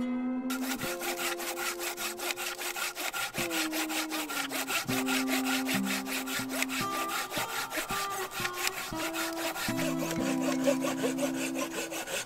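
A fast, very even rasping scrape like wood being sawn, starting about half a second in, over acoustic guitar music.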